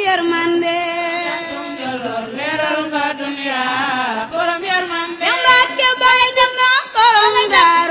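A song sung in Wolof: a lead voice singing long, wavering melodic lines over a steady held drone note, with sharper beats in the second half.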